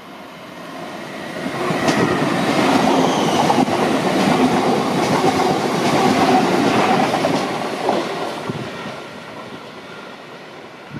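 Class 717 electric multiple unit running through the station past the platform. The wheel and rail noise swells as it approaches, is loud for about five seconds as the carriages go by, then fades as the train moves away.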